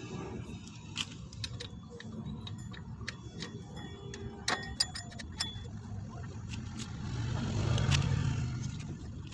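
Small metal clicks and clinks as a scooter's CVT drive-pulley fan and its nut are handled and slid onto the crankshaft, several in quick succession around the middle. A low rumble swells to its loudest near the end, then fades, over a steady low background hum.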